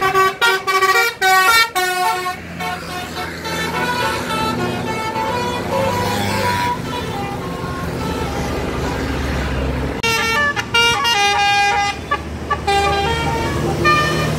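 Telolet multi-tone musical horn on an Indonesian tour bus playing a quick tune of short notes. The horn stops, the bus engine runs for several seconds, and a second burst of horn notes comes about ten seconds in.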